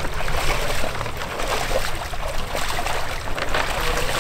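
Shallow water sloshing and trickling as people wade and push a small boat through it.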